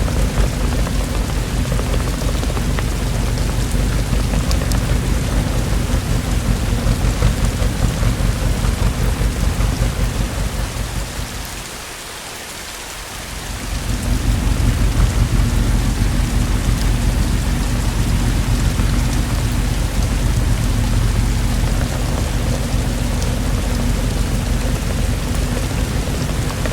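Steady heavy rainfall with a deep low rumble underneath, typical of a thunderstorm. The whole sound dips for a moment near the middle, then comes back at full level.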